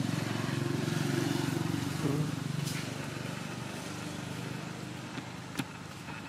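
A motor vehicle engine running close by, loudest in the first two seconds and then fading away, with two sharp clicks later on.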